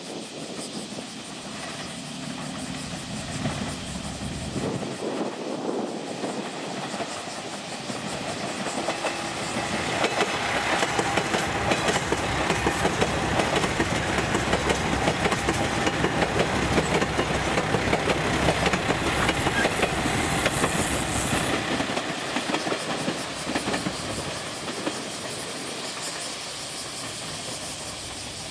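JR Shikoku 2000 series tilting diesel multiple unit, six cars, passing by: diesel engines running and wheels clicking over the rails. It builds from about eight seconds in, is loudest for the next dozen seconds as the cars go past, then fades as the train pulls away.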